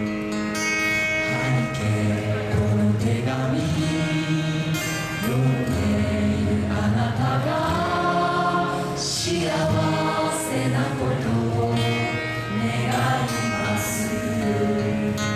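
Live music: a song sung over band accompaniment.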